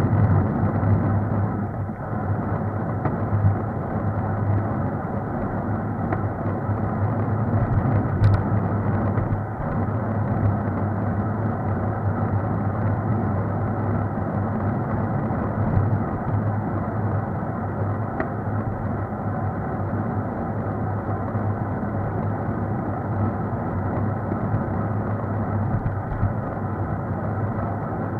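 Steady road noise of riding along an asphalt road, picked up by a camera mounted on the vehicle: a continuous rumble and hiss with a low hum under it, and a single short click about eight seconds in.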